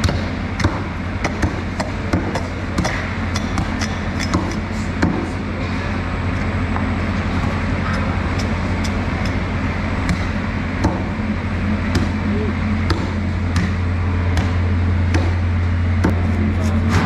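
A knife cutting through the base of a sailfish's sail (dorsal fin), heard as scattered sharp clicks and knocks over a steady low machine hum.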